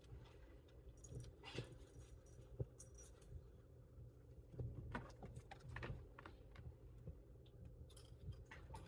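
Faint scuffling and light scattered clicks of kittens playfighting, over a steady low room hum.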